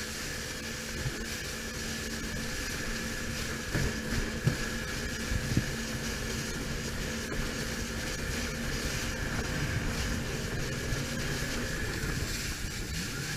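Yamaha WaveRunner personal watercraft engine idling steadily on the water, with a few short knocks about four to six seconds in.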